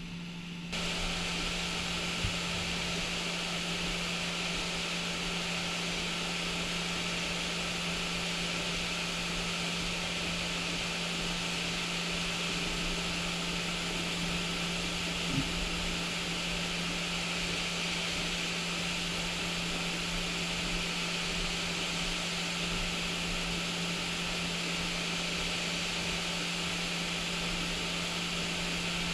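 Creality Ender 3 S1 Plus 3D printer running as its print starts: a steady whir with a low hum, switching on abruptly about a second in and holding even, with a couple of faint ticks.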